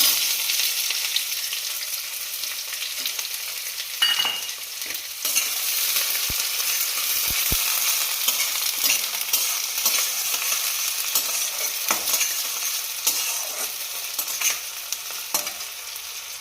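Chopped onions sizzling steadily in hot oil in a kadhai, just added to the pan with whole spices. A few sharp clicks break through the sizzle, which eases off a little toward the end.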